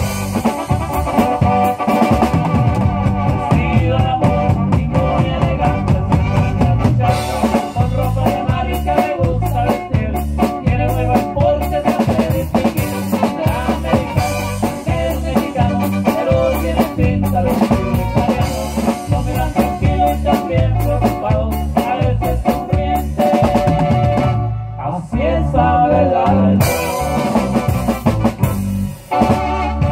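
Live band music played loud through PA speakers: electric guitar over drums and bass with a steady beat, briefly dropping away twice near the end.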